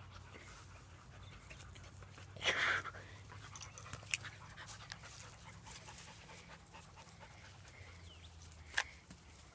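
Two dogs, a husky and a small fluffy white dog, play-wrestling: panting and scuffling, with a brief louder noise about two and a half seconds in and a short sharp one near the end.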